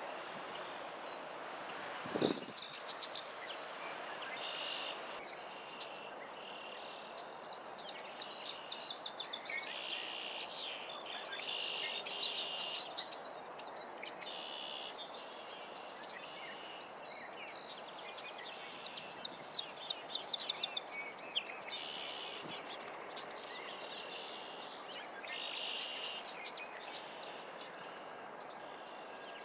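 Small birds chirping and trilling again and again over a steady marsh background hiss. The chirping is loudest about two-thirds of the way through, and there is a single sharp knock about two seconds in.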